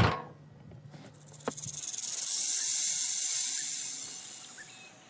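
A high, steady hiss swells up over the first couple of seconds, holds, then fades away near the end. A few faint short chirps come near the end.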